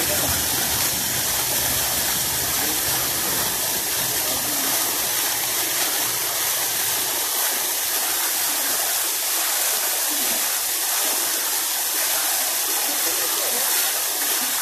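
Steady rushing water with an even hiss. A low rumble under it fades out about halfway through.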